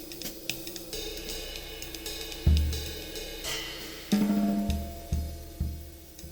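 Solo percussion playing: light cymbal and hi-hat taps give way to a few deep, resonant drum strikes, one about halfway through and a run of four more near the end, with a cymbal wash between them.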